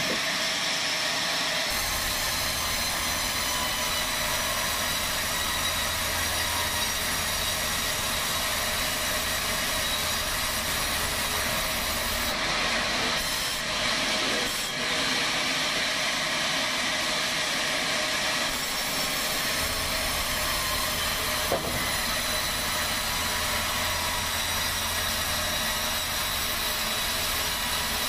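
Large sawmill band saw cutting lengthwise through a log: a steady hiss of the blade running through the wood, with a low motor hum under it for most of the time. One sharp click about two-thirds of the way in.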